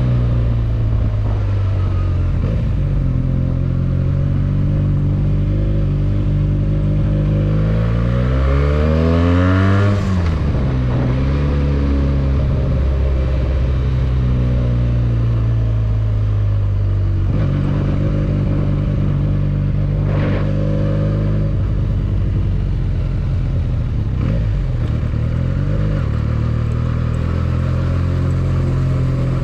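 Benelli 302S parallel-twin motorcycle engine running under way. It revs up hard from about seven seconds in, its pitch climbing until a gear change at about ten seconds, then it cruises at a fairly steady pitch.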